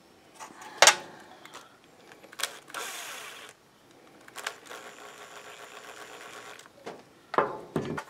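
Cordless drill/driver running steadily for a couple of seconds as it backs the screws out of a two-stroke leaf blower's carburetor, with sharp clicks of metal parts and tools before it and a clatter near the end.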